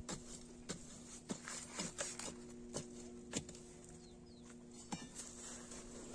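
A thin rod scraping and jabbing into dry, stony soil: a string of sharp scrapes and knocks, about eight in the first three and a half seconds, then one more near five seconds. A steady low hum runs underneath.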